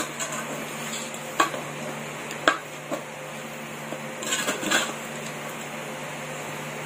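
Metal spoon scraping and clinking against a metal pot as chicken curry is stirred and mixed, with single sharp knocks about one and a half, two and a half and three seconds in and a short run of scraping a little after four seconds, over a steady low hum.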